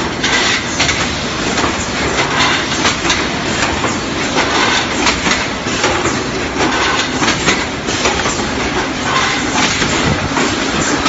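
Tinplate 4-litre oil can production line running: machinery and conveyors making a loud, continuous clatter, with dense rapid clicks of metal cans and parts knocking.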